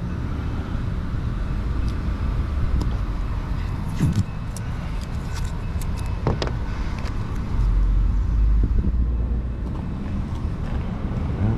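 Steady low rumble of car traffic that swells for a second or so past the middle as a vehicle passes, with scattered light clicks and a couple of sharper ticks from masking tape being handled.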